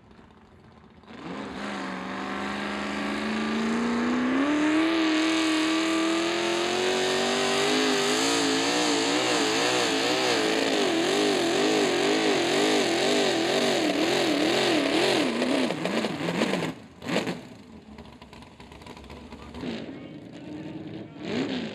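Naturally aspirated mini rod pulling tractor's engine revving hard under load, climbing steadily in pitch for several seconds, then rising and falling in pitch about twice a second, before cutting off sharply. A quieter engine runs after it.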